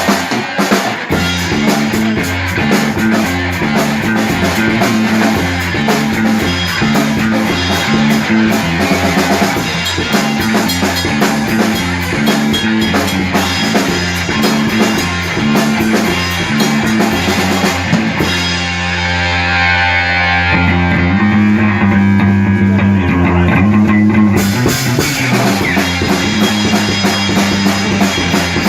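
Instrumental passage of a rock song: guitar, bass and drum kit playing with no vocals. About two-thirds of the way through, the cymbals drop out for several seconds before the full band comes back in.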